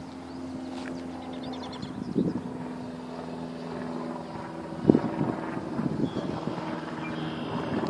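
Outdoor ambience: a steady low drone that fades about halfway through, with wind gusting on the microphone, loudest about five seconds in.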